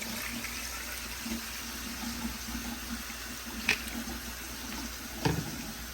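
Kitchen tap running steadily, drawing water to add to the curry. There is a short sharp clink about two-thirds of the way through and a dull knock near the end.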